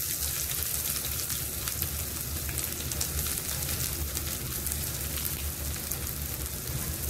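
Chopped shallots, ginger and mustard seeds sizzling in hot oil in a small steel tempering pan, a steady sizzle with scattered fine crackles. This is the tempering (thalippu) stage, just after the shallots go in.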